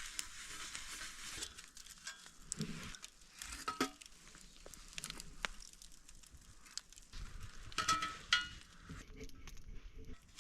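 Faint sizzling of a seasoned frying pan heating over a campfire, with scattered sharp crackles and clicks.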